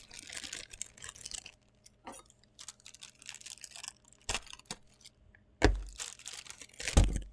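Figurine packaging being handled and opened: rustling and crinkling, with small clicks and three knocks, the loudest near the end.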